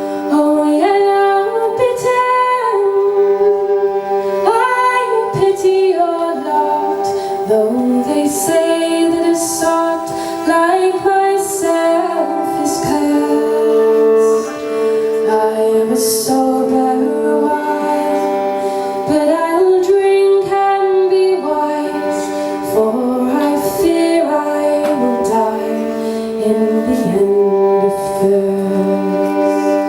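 A woman singing a slow folk song over a steady, sustained instrumental drone.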